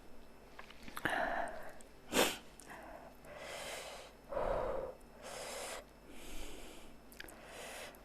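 A woman's heavy breathing against the burn of very spicy noodles: about eight rapid, noisy breaths and gasps, with one sharp, short intake about two seconds in.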